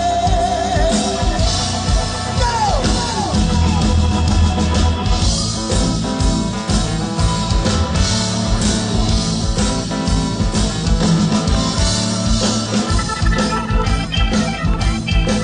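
Rock band playing an instrumental break: electric lead guitar with bent notes about two to three seconds in, over drums and bass.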